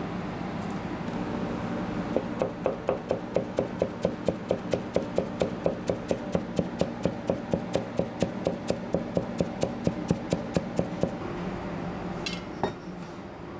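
Kitchen knife rapidly slicing a rolled bundle of shiso leaves into fine strips on a plastic cutting board: even chops of about four a second, starting about two seconds in and stopping about eleven seconds in. A single sharper clack follows near the end.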